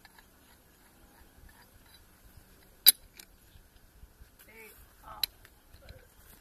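Sharp metallic clink of a steel pipe wrench on a drill rod, once about three seconds in and again more faintly about five seconds in, as the rod is gripped and turned by hand to lift it out of the bore hole. A few faint ticks of tool and rod handling come between the clinks.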